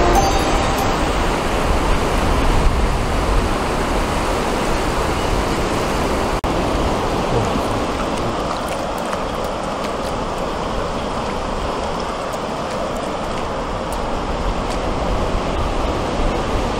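Large, rough sea waves breaking along the shore: a steady rush of surf, with a momentary gap about six seconds in.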